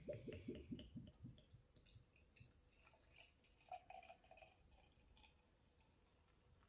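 Cider poured from a glass bottle into a drinking glass, faint: quick glugging for the first second or so, then a thinner trickle with light ticking that fades away.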